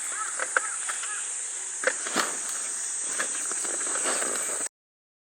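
Steady high-pitched chorus of night insects, with a few scattered knocks. The sound cuts off abruptly near the end.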